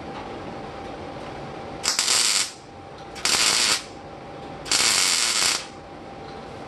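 Welding arc crackling in three short bursts, each half a second to a second long: tack welds on the car body's steel.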